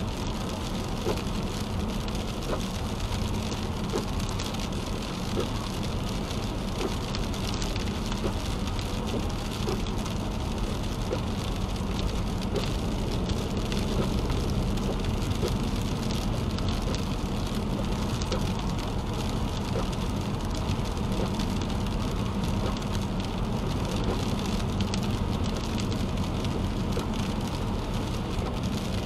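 Steady road noise heard inside a car's cabin as it drives on a wet highway: tyres hissing on the wet pavement under a low drone, with rain spattering on the windshield in small scattered ticks.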